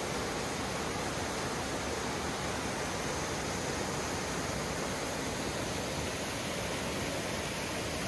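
Mountain creek rushing over boulders in small cascades: a steady, even rush of water.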